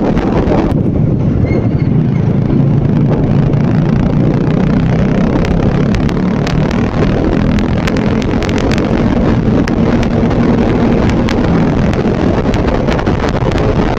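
Motorcycle engine running steadily at cruising speed, with wind rushing over the microphone. The high wind hiss drops off sharply about a second in, and light ticks come through later on.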